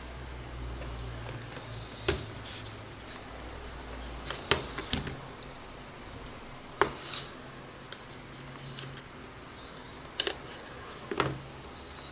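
Handling of a cardboard phone box on a wooden table while a knife is brought to its seal: a handful of separate sharp clicks and taps, spaced out, with a low rumble of handling in the first few seconds.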